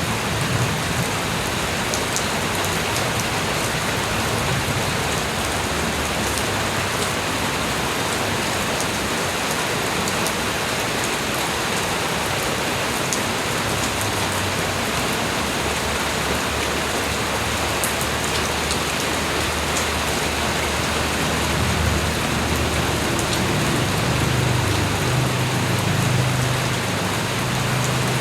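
Steady light rain falling on surfaces, with scattered sharper drips. A low rumble swells a little in the last several seconds.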